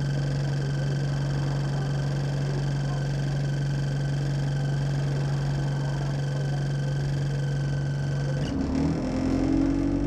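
Alexander Dennis Enviro 200 Dart bus's diesel engine idling steadily, heard from inside the bus. About eight and a half seconds in, the engine note changes and climbs as the engine picks up.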